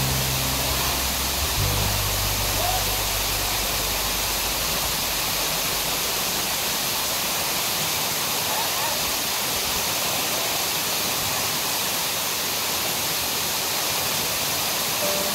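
Tall waterfall plunging into a rock pool: a steady, unbroken rush of falling water.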